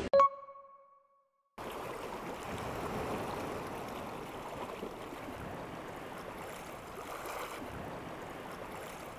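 A single sharp ringing ding right at the start that dies away within a second, then a moment of silence. From under two seconds in, steady seaside ambience: sea water washing against a rocky breakwater, with a light wash of wind.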